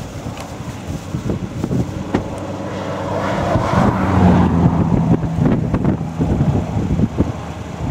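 Vehicle running with a steady low hum, wind noise and scattered knocks; a louder swell of noise builds in the middle and fades.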